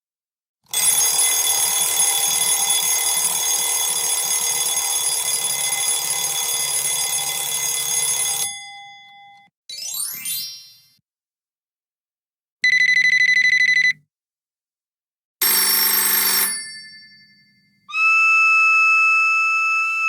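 A series of different electronic alarm and ringtone sounds played one after another with short gaps. A long ringing tone runs for about eight seconds, followed by a quick rising sweep, a short buzzing beep, a brief ring, and a steady tone near the end.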